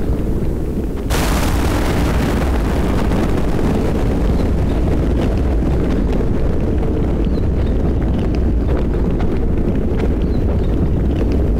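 A thunderstorm: steady rain over a low rumble, then about a second in a clap of thunder breaks in suddenly and rolls on, slowly fading, with scattered drips ticking through it.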